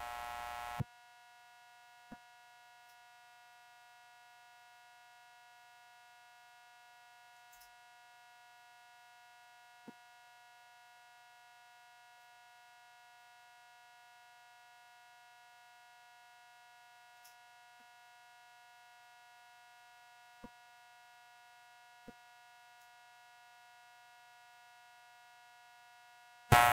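Near silence with a faint, steady electrical hum and a few tiny, faint clicks; a louder hum cuts off about a second in and returns just at the end.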